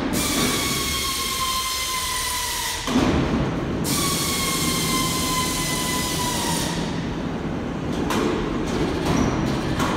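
ZH4100ZD four-cylinder turbocharged diesel engine running steadily with an even low drone, at its 1500 rpm generator speed. Twice a high whine slowly falls in pitch over a few seconds, and a sharp loud onset comes about three seconds in.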